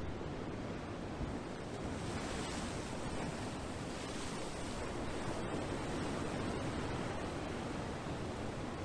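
Ocean surf in a steady rush of washing waves, swelling a little about two seconds in.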